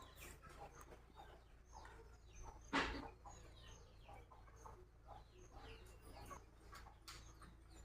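Small birds chirping faintly, a quick series of short falling chirps, with one brief louder sound about three seconds in.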